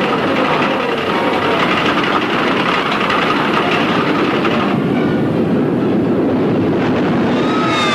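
Roller coaster cars running along their track, a loud, steady, dense noise, with high sliding tones coming in near the end.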